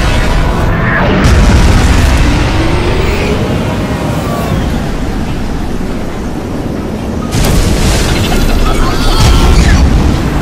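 Loud, continuous rumbling sound effect with whooshing sweeps, like a blast of wind and dust, surging about a second in and again around seven seconds in, over background music.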